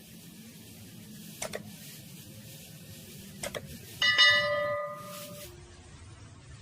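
Two light taps, then a single loud metallic strike about four seconds in that rings out with several bell-like tones and fades over a second or so.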